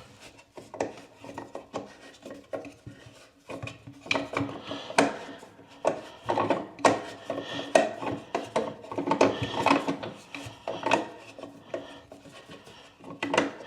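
Irregular scraping, rubbing and clicking of a slotted faucet-nut wrench working the plastic mounting nut under a bathroom sink, the tool's slots catching on the nut's edges as it is turned.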